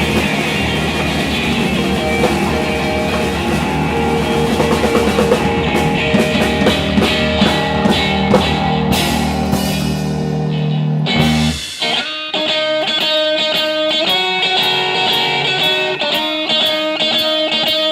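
Live blues-rock trio of electric guitar, bass and drums playing an instrumental passage. About two-thirds through, the low end drops away and the guitar goes on with separate notes over the drums.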